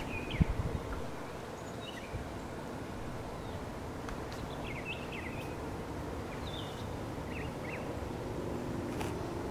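Outdoor ambience: small birds chirping in short calls now and then over a steady background noise, with a brief low thump about half a second in.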